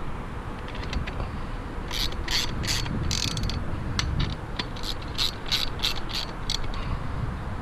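Socket ratchet wrench being worked in short back-and-forth strokes, about two clicking rasps a second for several seconds, tightening the lag bolts of a satellite dish mount into the roof framing.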